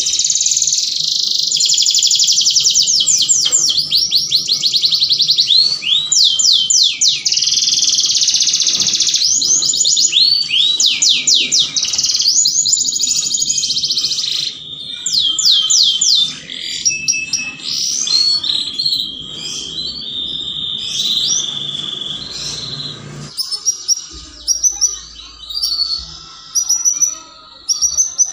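Domestic canary singing in breeding condition: long, fast trills of repeated high sweeping notes, breaking into shorter phrases after a low background hum cuts out about 23 seconds in.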